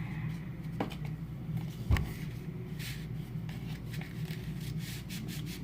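Folded paper being handled and fitted into place: light rustling and small taps, with a single low thump about two seconds in, over a steady low hum.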